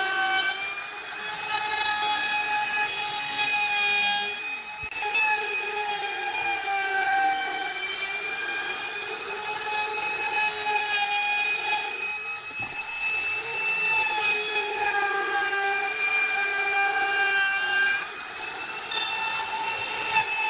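Power tool running steadily while cutting wood: a continuous motor whine with the hiss of the cut.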